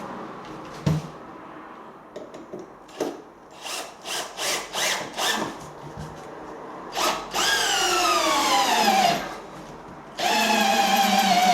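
A few light knocks and taps, then a cordless drill driving a screw into timber. Its motor whine falls in pitch as the screw bites and stops about nine seconds in. It starts again about a second later at a steady pitch.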